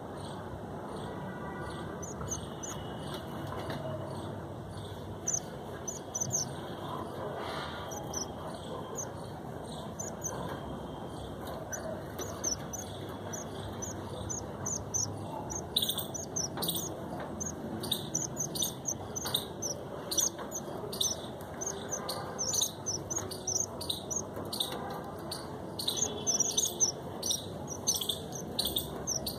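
Red avadavats (red munias) giving short, high-pitched chirps, sparse at first and coming thick and fast from about halfway through, over a steady background noise.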